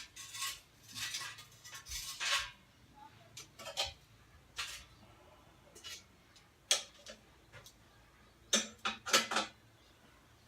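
Coals being put onto the lid of a cast iron camp oven: irregular metallic scrapes and clinks, with a quick cluster of several near the end.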